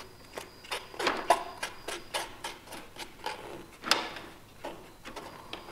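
A plastic spoon knocking and scraping against a plastic cup and strainer while wet silver chloride is scraped out into the filter. It makes a run of light clicks, about three a second, with short scrapes between.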